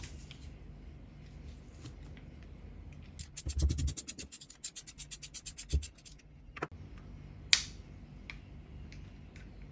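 Needle-nose pliers turning a small bolt on a motorcycle carburetor: metal scraping and a rapid run of clicks for about three seconds midway, with a few knocks and a sharp click.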